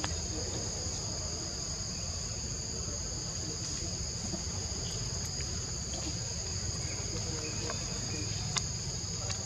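Steady chorus of forest insects: a continuous high buzz on two pitches, over a low rumble, with a few faint ticks and one sharper click near the end.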